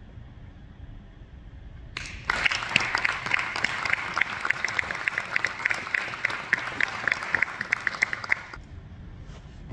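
A small audience applauding. The applause starts about two seconds in, with close, sharp claps standing out at a steady pace, and stops suddenly near the end.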